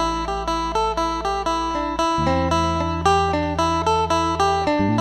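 Background music: a plucked-string melody of quick, even notes over a low held bass that shifts about two seconds in and again near the end.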